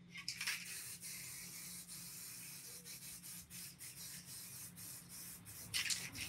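Faint steady hiss with light rubbing strokes through it, fading about a second before the end, over a low steady hum.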